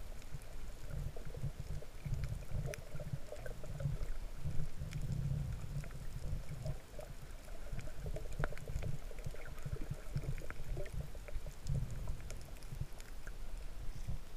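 Muffled underwater sound heard through a camera's waterproof housing: a low churning rumble of water moving against the case, with scattered faint clicks and crackles.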